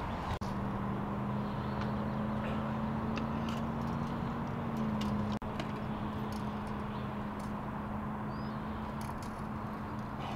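A steady low engine hum, like a motor idling, over outdoor background noise. It starts about half a second in and steps up slightly in pitch around the middle.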